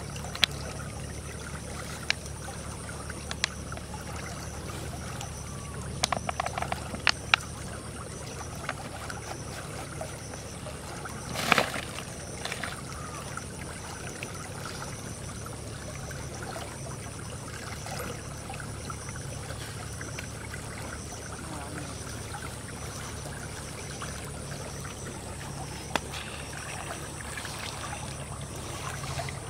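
A small canal trickling under a steady low hum, with scattered clicks and rustles as bait is handled from a plastic packet onto a metal plate; one louder rustle comes about eleven seconds in.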